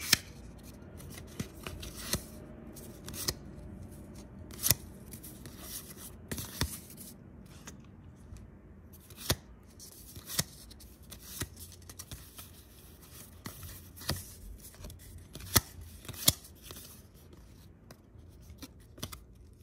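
Yu-Gi-Oh trading cards handled in a stack, with a short crisp snap each time a card is flicked from the front to the back, at irregular intervals about every second or two.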